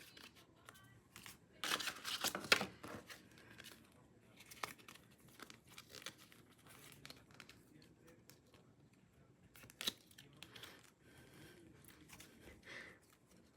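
Album packaging being torn and crinkled by hand during an unboxing. The loudest rustling burst comes about two seconds in, followed by scattered light clicks and softer rustling.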